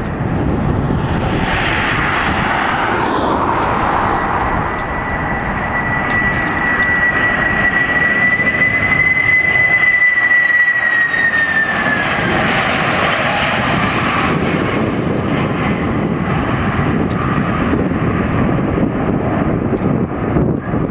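Boeing 767-300ER's jet engines running as the airliner flies low past on landing: a steady, loud roar with a high engine whine that falls in pitch about twelve seconds in as it goes by.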